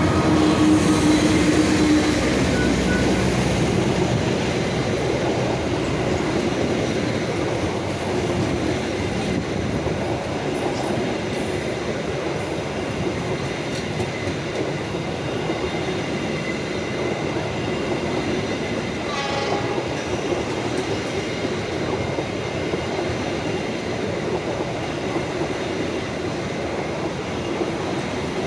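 Diesel locomotive passing close by, its engine loudest in the first few seconds, then a long rake of passenger coaches rolling past with a steady rumble of wheels on rail.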